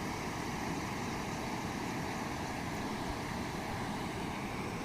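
Steady rush of floodwater pouring over a dam spillway and across a flooded bridge, an even, unbroken noise.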